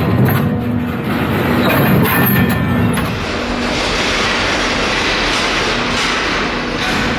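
Freight wagons rolling slowly over rails set into a ferry's train deck, their wheels rumbling and clattering. About three seconds in, a steady hiss of wheel-on-rail noise takes over.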